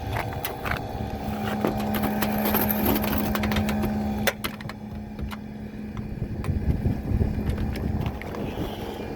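Bryant rooftop gas package unit running with a steady hum, wind rumbling on the microphone and scattered clicks of handling. About four seconds in, a sharp click and the hum drops in level.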